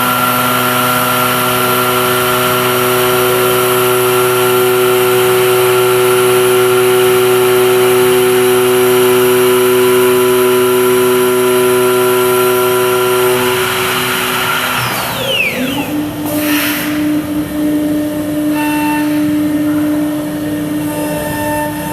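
Comec MD TOP CNC woodworking machine running, its spindle motors giving a steady multi-tone whine. About fourteen seconds in the tones stop with a falling sweep, and a new, lower steady whine starts.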